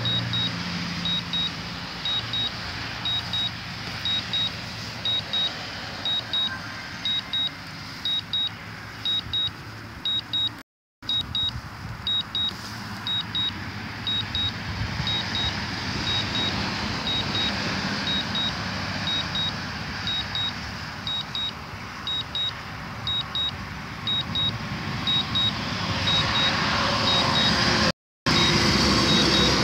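High-pitched double beeps repeating about once a second: the DJI Phantom 4 remote controller's Return-to-Home alert, sounding while the drone flies itself home after losing signal. Beneath them runs a steady hiss of background noise that grows louder near the end, and the sound cuts out briefly twice.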